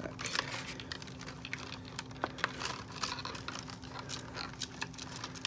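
Clear plastic doll packaging crinkling and clicking irregularly as it is handled and pulled away from the doll.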